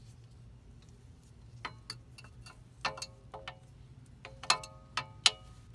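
Metal clinks and light ringing pings from a Subaru Legacy's rear parking brake shoe and its return spring being handled and set against the brake backing plate. A few scattered clicks come first, then a run of sharper, louder pings near the end.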